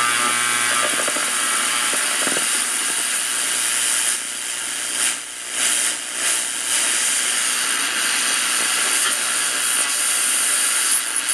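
Freshly restored RCA AR-77 tube shortwave receiver giving out loud static and hiss from its speaker as the dial is tuned between stations, the noise dipping briefly a few times partway through.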